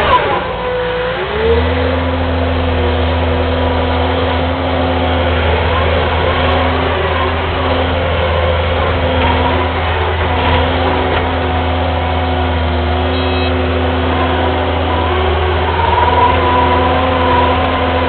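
Kubota skid steer's diesel engine running steadily, heard from the operator's seat. About a second in, as the bucket drives into the dirt pile, the engine briefly drops in pitch under load and recovers. A few smaller dips follow as the machine works.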